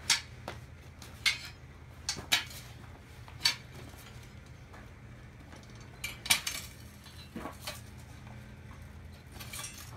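Scattered sharp metal clinks and clanks of steel foundry tongs and tools against a crucible furnace, about seven or eight strikes at uneven intervals, over a steady low hum.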